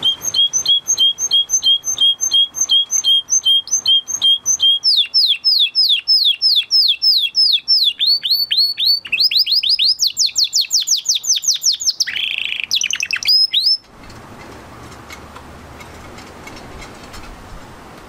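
Domestic canary singing a long phrased song: a run of short repeated notes about three a second, then faster trills of downward-sweeping notes that climb higher, a brief buzzy phrase, and a sudden stop about three-quarters of the way through.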